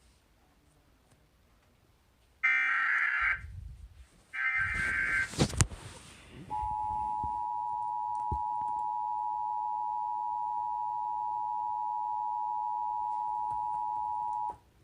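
Emergency Alert System broadcast tones introducing a tornado warning. Two short buzzing digital data bursts of the SAME header, then a click, then the steady two-tone EAS attention signal held for about eight seconds before it cuts off.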